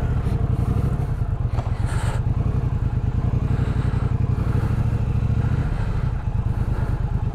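Triumph Speedmaster's 1200 cc parallel-twin engine idling with a steady low throb as the bike rolls slowly.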